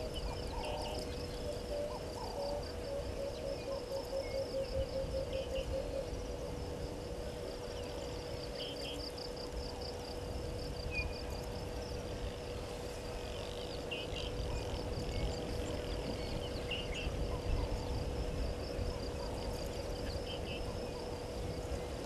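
Outdoor bush ambience dominated by insects trilling in a steady, fast-pulsing high buzz over a steady low drone. A rapid run of low hooting notes comes a few seconds in, and brief high chirps sound every few seconds.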